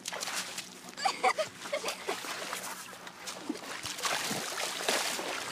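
Splashing and sloshing of people in lake water, with a few brief faint voices about a second in.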